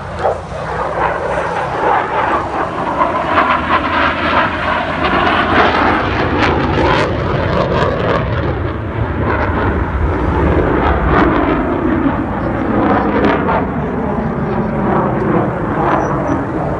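F-16 fighter's single jet engine during a display pass: a loud, continuous rush of jet noise with sharp crackles running through it.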